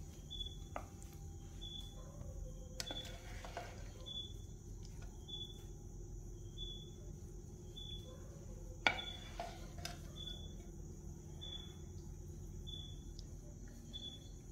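Spatula tapping and scraping faintly against a ceramic plate as fried squid is served onto it, with a sharp clink about nine seconds in. A cricket chirps about every second in the background over a low steady hum.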